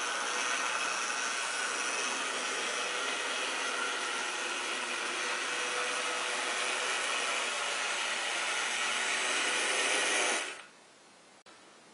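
HO-scale model steam locomotive running on track, its electric motor and gear drive making a steady whir that grows slightly louder as it nears. About ten and a half seconds in the whir drops away sharply to a faint hum as the locomotive slows.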